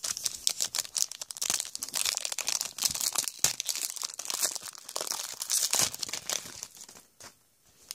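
Foil wrapper of a trading card pack crinkling and crackling as it is torn open and the cards are pulled out, stopping about seven seconds in.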